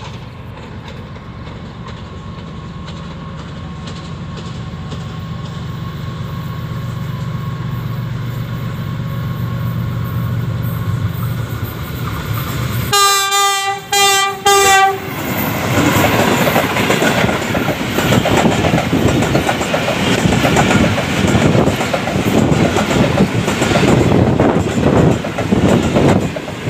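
Pakistan Railways GEU-40 diesel locomotive approaching at speed with a passenger train, its engine rumble growing steadily louder. About halfway through, its horn sounds three times in quick succession. Then the coaches rush past with a rapid clickety-clack of wheels over the rail joints.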